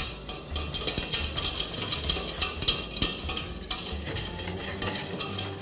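Wire whisk beating béchamel sauce in a stainless steel saucepan, quick repeated strokes of the whisk against the metal as the sauce thickens.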